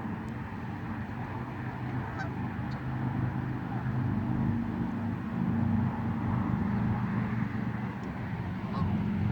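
Geese honking over a low steady hum that grows louder about three seconds in.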